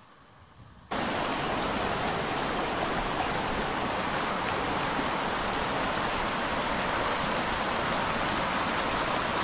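Shallow mountain stream rushing over rocks, a steady rush that starts abruptly about a second in.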